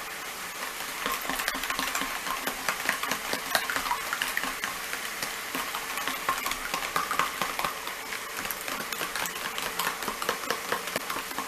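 A metal utensil stirring thick buffalo wing sauce in a plastic food container, a continuous run of quick clicks and scrapes against the container's sides.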